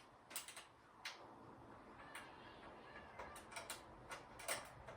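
Faint, scattered clicks and light taps of small metal hardware and a screwdriver being handled while a ceiling fan is mounted.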